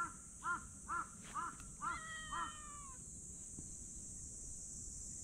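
A crow cawing in a quick series of about six caws, roughly two a second, the last one drawn out and falling slightly, stopping about three seconds in. A steady high hiss runs underneath.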